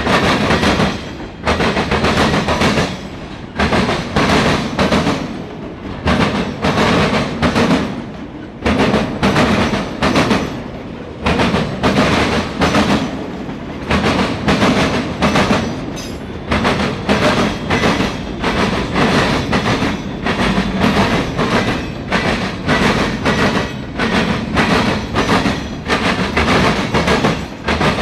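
Freight train cars rolling past, their wheels clacking over rail joints again and again in quick groups.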